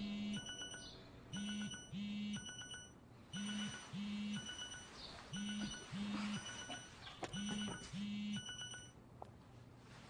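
Smartphone going off on vibrate and ring: a buzzing vibration in pairs about every two seconds, each pair with a beeping electronic tone made of quick pulses.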